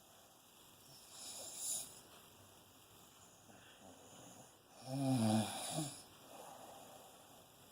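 Snoring of someone in deep sleep. A soft breath comes about a second and a half in, then one loud, low-pitched snore about five seconds in that lasts about a second.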